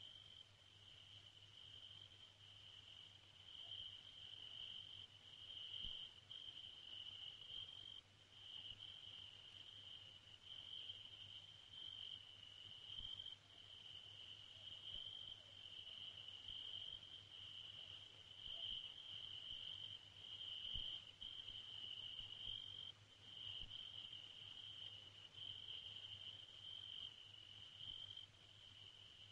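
Crickets chirring at night, a faint, continuous high trill that swells and dips, over a low steady hum.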